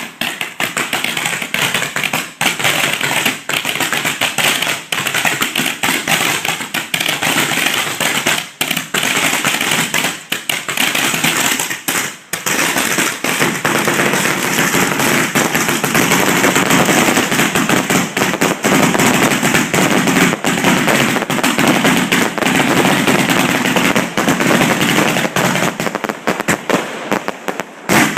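Fireworks going off close by: a dense, unbroken barrage of launches, bangs and crackling bursts. The barrage gets denser and louder about halfway through.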